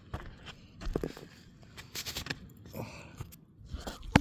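Irregular scuffing steps and taps on asphalt roof shingles, with a sharp knock near the end.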